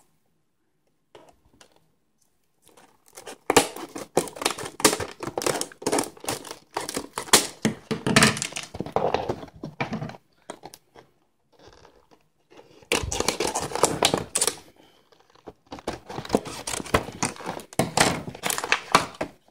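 A clear plastic blister pack with a cardboard backing being pried and pulled open by hand: bursts of crinkling, crackling and tearing with occasional knocks. It starts after about three seconds of quiet and breaks off twice for a second or two.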